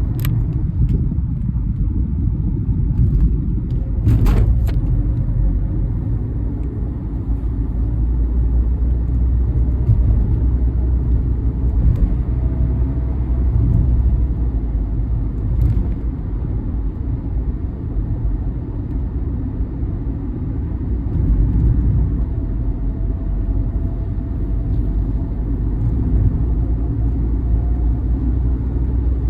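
Steady low rumble of heavy vehicles rolling past, with a sharp knock about four seconds in.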